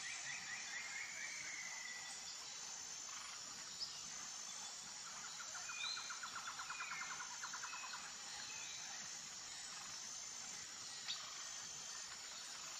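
Faint nature ambience: small birds chirping and trilling in rapid notes, the longest trill about midway, over a steady high insect hiss.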